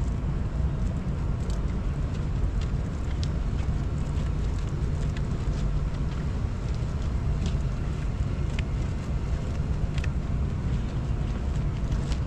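Steady low rumble of wind buffeting the microphone, with scattered faint ticks.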